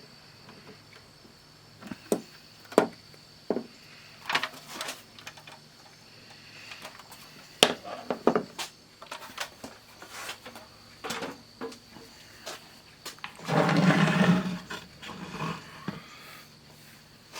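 Hands working on an 8-track player's mechanism: irregular clicks and knocks of small parts and tools, with a louder scraping rustle lasting about a second near the end.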